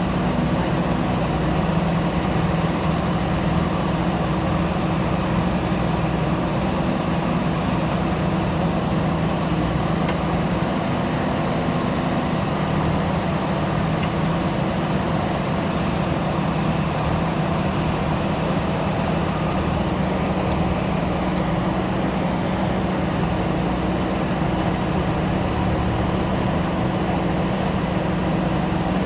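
Diesel engine of a JCB backhoe loader running steadily with an even hum.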